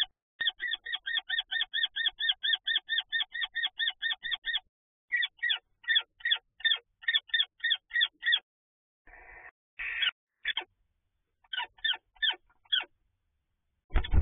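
Common kestrels calling inside a nest box: a fast, even series of sharp kee-kee-kee notes, about five a second, then slower, broken runs of the same call. Two short harsh rasping bursts come near the middle. These are agitated calls of kestrels fighting a barn owl for the nest.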